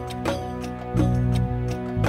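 Instrumental background music: short plucked-sounding notes ringing over low bass notes.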